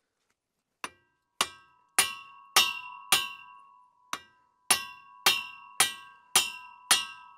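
Hammer striking a semi truck's steel drive-shaft yoke, about eleven blows at roughly two a second with a short pause after the fifth, each leaving a clear metallic ring: driving a U-joint bearing cap out of the yoke.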